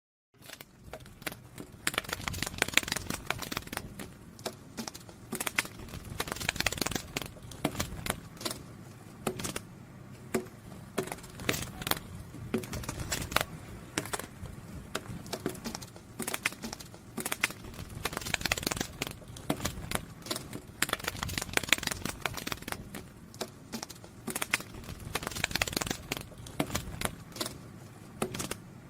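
Butterfly wings fluttering close to the microphone: irregular dry, papery rustles and clicks, coming in quick clusters with brief pauses between.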